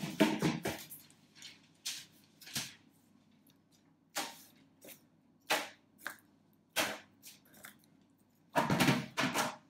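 Foil-wrapped cardboard ring moulds being set down one at a time on a metal baking tray: a string of separate light knocks and foil rustles about a second apart, with a louder clatter near the end.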